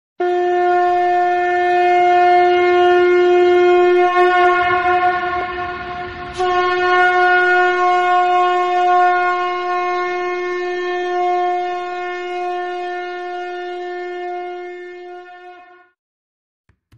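A horn-like wind instrument blown in two long, steady notes on the same pitch; the first turns breathy and breaks off about six seconds in, and the second fades out near the end.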